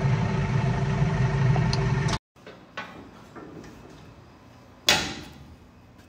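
Steady running of a nearby machine for about two seconds, cut off abruptly. Then, in a quiet shop, a small click and one loud bang near the end that rings and dies away over about a second.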